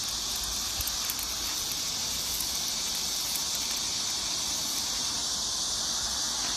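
Electric arc welding on a steel frame: a steady high hiss with light crackling.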